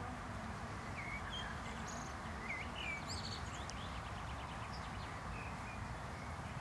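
Small birds chirping in short, scattered calls over a steady outdoor background hiss.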